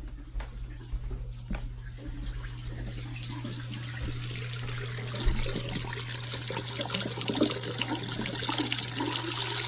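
Water running hard from an open faucet, left on to flush sediment out of newly filled water lines. It grows louder and hissier partway through. A few clicks and knocks near the start.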